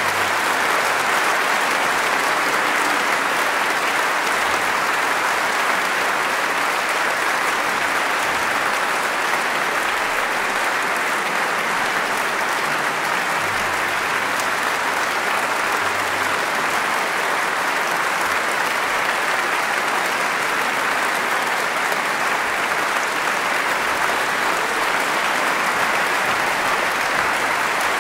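Audience applauding steadily, a dense, even clapping that keeps the same level throughout.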